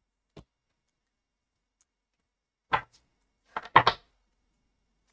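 Tarot cards being handled on a cloth-covered table: a faint tap, then a few seconds later a quick run of sharp card slaps and taps of the deck, the loudest a little past the middle.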